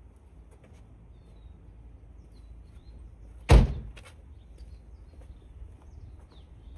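A single loud thump about halfway through, followed by a softer knock half a second later.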